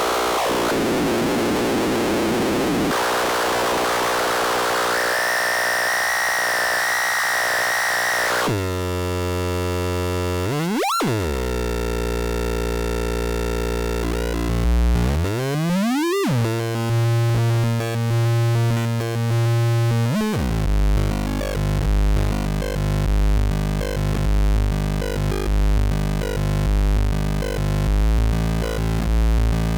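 Live electronic noise music from DIY electronic instruments. A harsh hiss gives way about 8 seconds in to buzzing tones whose pitch plunges and sweeps back up twice, then settles into a low pulsing drone with a quick flicker.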